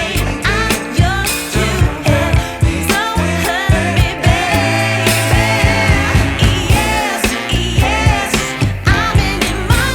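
Background pop song with a woman singing over a steady drum beat and bass.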